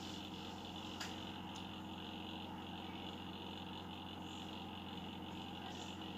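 Steady low hum with a faint even hiss, unchanging throughout; one light click about a second in.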